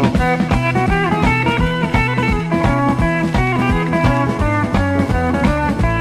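Background rock music with electric guitar, bass and a steady drum beat.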